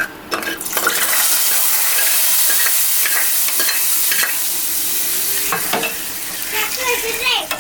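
Hot tempering oil with mustard seeds and dried chillies sizzling in a steady hiss as it meets the ajwain rasam, easing off after about five seconds. A spoon clinks against the pot a few times as it is stirred.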